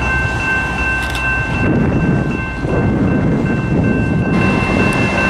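BNSF diesel locomotive running, a loud low rumble under a steady high whine; around two seconds in the rumble turns rougher for a couple of seconds.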